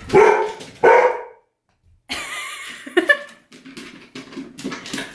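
Dog barking excitedly: two loud barks in quick succession at the start, then quieter sounds after a short break.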